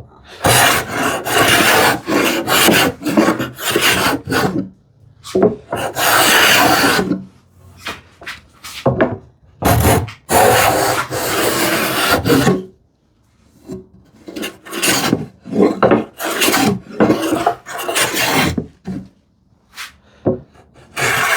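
Shop-made wooden rabbet plane cutting a rebate in ash, a series of shearing strokes along the board, some over a second long, with a short pause a little past halfway.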